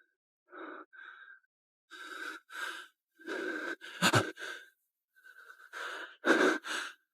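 A person breathing hard in short, ragged breaths. There is a sharp knock about four seconds in.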